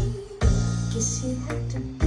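Pop song with guitar and heavy sustained bass notes played back over Celestion System 6000 loudspeakers; a new deep bass note hits about half a second in.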